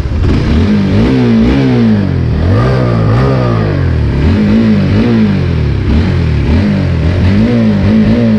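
Honda Supra GTR 150's single-cylinder engine revved in repeated throttle blips, its pitch rising and falling about once a second.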